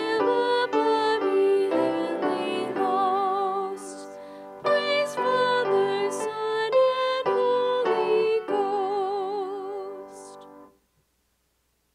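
A solo voice singing with strong vibrato over instrumental accompaniment. The song ends about a second before the close.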